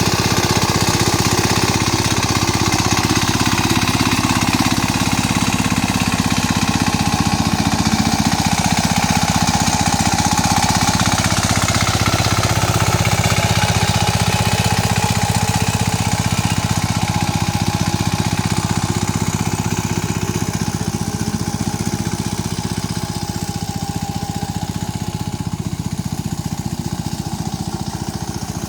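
Mini tractor engine running steadily with a rapid, even chugging while harrowing a muddy rice field; it eases off a little in loudness in the last third.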